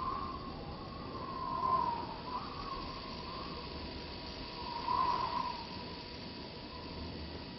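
Synthetic sound effect: a steady rushing hiss with a wavering whine that swells about two seconds in and again about five seconds in.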